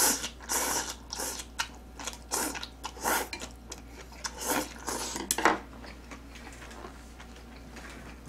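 A person slurping noodles from a pot with chopsticks: a run of short, noisy slurps over the first five and a half seconds, then quieter.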